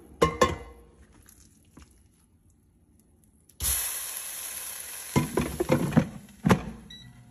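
Beef brisket sizzling in a hot air fryer basket, a steady hiss that starts suddenly about three and a half seconds in. The metal basket knocks as it is handled at the start and clunks several times as it is slid back into the air fryer near the end.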